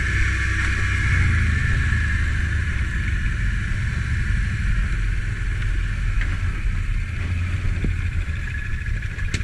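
ATV engine running steadily at low trail speed on a muddy track.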